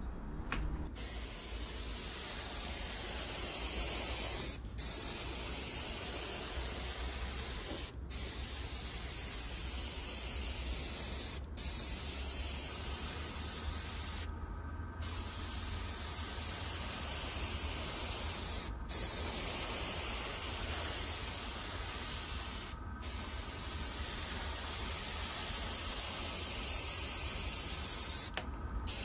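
Airbrush spraying at about 20–25 psi: a steady hiss of air and paint, broken by short breaks every few seconds.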